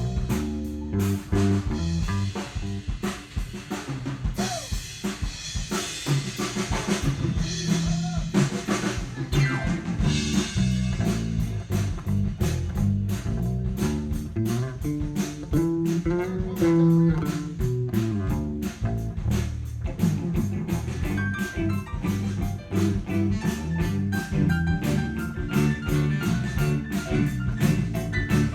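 Live band playing an instrumental passage: a drum kit keeps a busy, steady beat with snare and bass drum over a sustained bass line, with no singing.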